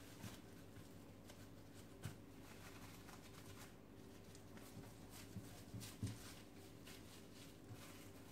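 Faint crinkling and rustling of plastic wrap as hands roll and press a log of sweet mixture inside it, with a couple of soft thumps against the countertop about two and six seconds in.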